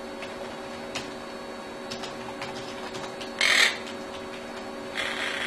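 Pet parakeet giving one short, harsh squawk about three and a half seconds in, then a fainter raspy call near the end, over a faint steady background hum.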